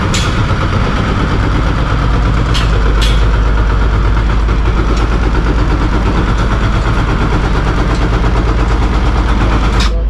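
Diesel engine of heavy construction machinery running steadily as a loud low rumble, with a few short knocks about two and a half, three and five seconds in.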